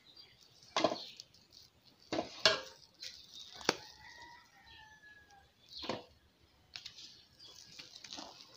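A plastic spatula scraping thick cake batter out of a plastic mixing bowl and knocking it into a metal cake tin: about seven short scrapes and knocks at irregular intervals.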